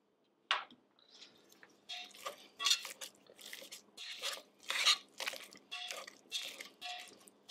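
Wire potato masher working butter into cooked potatoes in a stainless steel saucepan: after a single knock about half a second in, repeated mashing strokes, roughly two a second, with the metal masher clinking and scraping against the pan.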